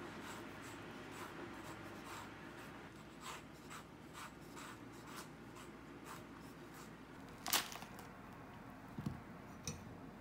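Paring knife scoring through a peach's skin on a wooden cutting board: a run of faint, short scratching strokes. About seven and a half seconds in comes one sharp click, then a few soft knocks near the end.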